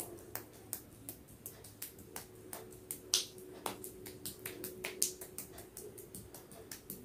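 Hands massaging a cream-covered face: quick, irregular, wet clicks and pats of skin on skin, several a second, over a faint steady hum.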